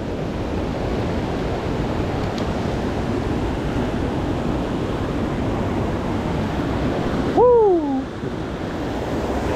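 Steady rush of a mountain creek running over rocks. About seven and a half seconds in, a short voiced exclamation falls in pitch over the water.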